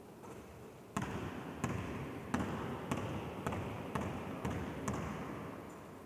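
Basketball dribbled on a wooden gym floor from a wheelchair: about eight bounces, roughly two a second, starting about a second in. Each bounce echoes in a large, empty sports hall.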